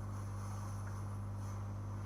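Steady low electrical hum with a faint high hiss, unchanging throughout.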